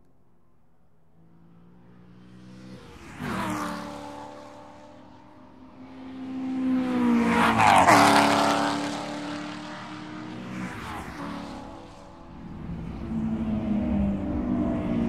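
Cars at speed passing a trackside spot one after another, each engine note rising and then dropping in pitch as it goes by. The loudest pass is about eight seconds in, with smaller ones about three and eleven seconds in, and another car closing in near the end.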